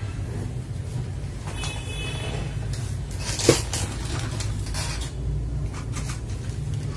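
Small clicks and knocks of switch-lubing tools and containers being handled and set out, with one sharper click about three and a half seconds in, over a steady low hum.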